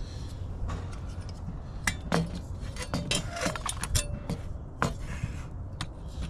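A string of light metallic clinks and knocks as factory speaker brackets and aftermarket 6x9 car speakers are handled and set against each other, some of the knocks briefly ringing.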